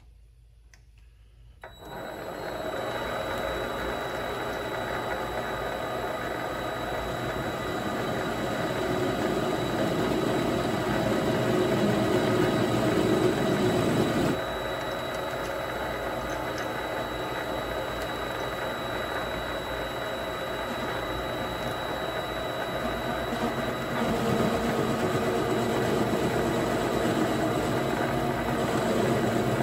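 Vevor MX 400 mini lathe starting about two seconds in and running steadily, the spindle motor and gears giving a constant high whine, while a chamfer is cut on the punch. The lower tone shifts about halfway through and again near the end.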